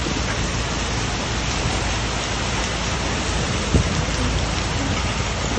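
Hail and rain pelting down on wet pavement in a dense, steady clatter, with one sharper hit about two-thirds of the way through.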